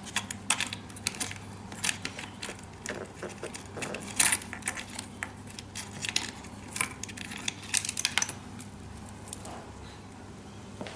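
Irregular small clicks and light rattles of plastic wire-harness connectors being unplugged and their cables handled inside a treadmill display unit, over a steady low hum.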